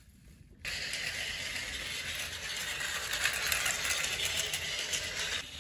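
Battery-powered Plarail toy train running along plastic track: a steady motor whir with wheel rattle that starts about half a second in and stops shortly before the end.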